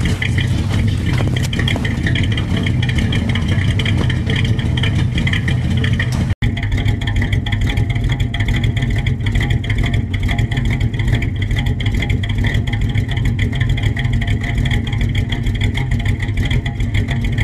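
1978 Chevrolet pickup's engine idling steadily, heard at the tailpipe, with a momentary break in the sound about six seconds in.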